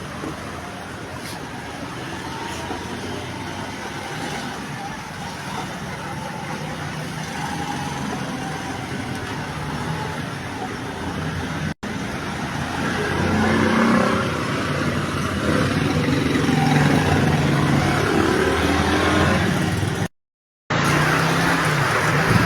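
Motor vehicle engine and road traffic noise, louder after an abrupt cut about halfway through, with a half-second gap near the end.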